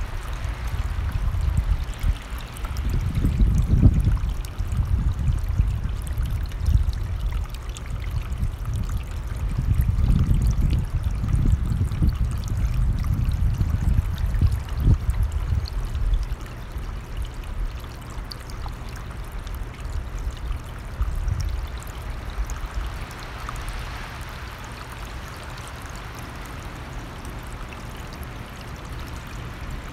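Running stream flowing steadily. Over roughly the first half, gusts of wind rumble on the microphone in irregular swells, then ease.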